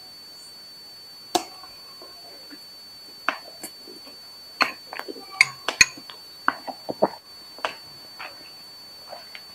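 Close-miked eating sounds: mouth smacks and chewing of instant noodles, with forks clicking against a glass bowl, heard as a scatter of short sharp clicks and smacks. A faint steady high-pitched whine runs underneath.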